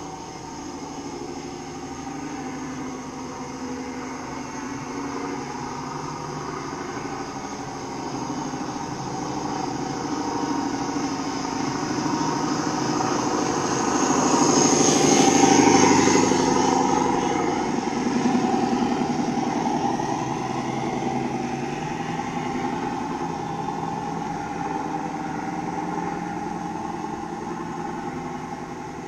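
Engine sound of a remote-controlled model Scania truck, running steadily. It grows louder as the truck drives up to and past, loudest about halfway through, then fades as it moves away.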